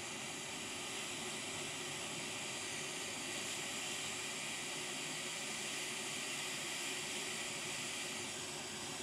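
Hot air rework station blowing a steady hiss of hot air onto a surface-mount chip, heating its solder to desolder it from a laptop motherboard.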